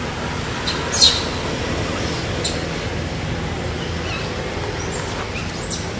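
Steady outdoor background noise with a few short, sharp high chirps or squeaks, the loudest about a second in and a quick rising one near the end.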